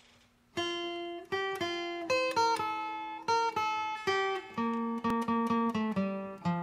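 Instrumental music: an acoustic guitar picking a melody note by note, starting about half a second in, with lower bass notes joining about two-thirds of the way through.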